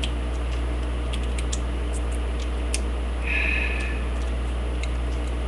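Faint, irregular small metal clicks and scrapes of a lock pick and tension wrench working the pins inside a lock, over a steady low electrical hum. A short higher squeak comes about three seconds in.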